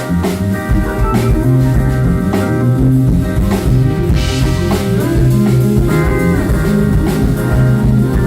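A live band playing a blues-rock jam: drum kit, bass and electric guitar, with a guitar note sliding up in pitch about six seconds in.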